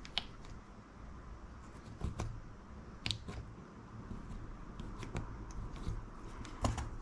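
Rubber grommets being pressed into a carbon-fibre drone frame with a small hand tool: soft handling noise with a few scattered light clicks.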